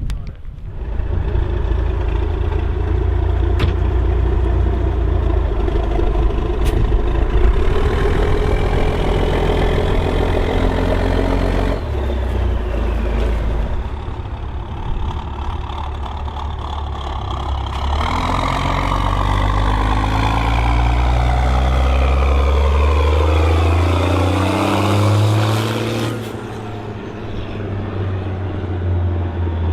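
Case IH 1455 XL tractor's six-cylinder diesel engine running hard under load. Its note shifts abruptly a couple of times, then sweeps and falls in pitch and drops in loudness a few seconds before the end.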